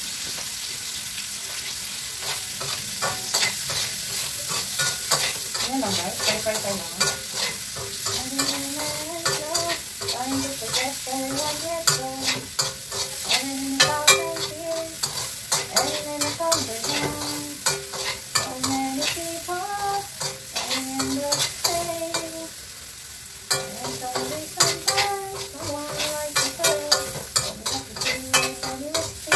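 Sausage pieces frying in oil in a pan on a gas burner, sizzling steadily, while a spoon stirs them and clicks and scrapes against the pan again and again.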